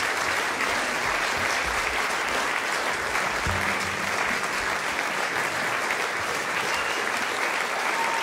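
Concert audience applauding steadily after a song, with a short low thud about three and a half seconds in.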